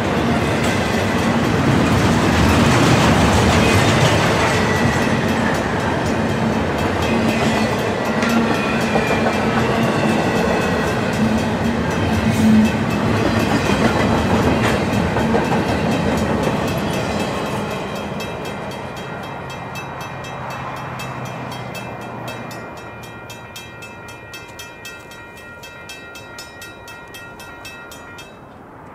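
A train passing at track speed: loud, steady running noise of wheels on rail, dying away over the last ten seconds or so as the train recedes.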